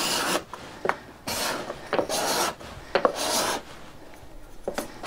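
A steel card scraper scraping across an oak board in four short strokes, about one a second, testing a freshly honed edge that now cuts definitely sharper on one side.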